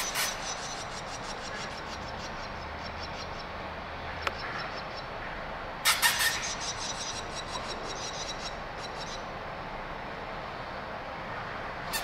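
Swallow nestlings begging for food: bursts of rapid, high-pitched chirps at the start, again from about halfway for a few seconds, and once more at the end, over a steady background hum.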